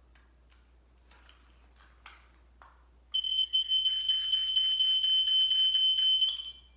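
Coleman smoke alarm's piezo horn sounding one loud, continuous high-pitched beep for about three seconds, starting about three seconds in and cutting off abruptly. A few faint handling clicks come before it.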